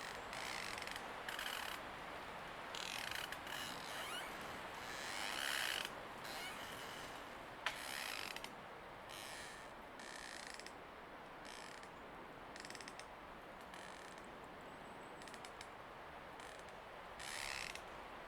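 Wind blowing through trees: a steady rush with repeated short bursts of rustling leaves, and a single sharp click a little before halfway through.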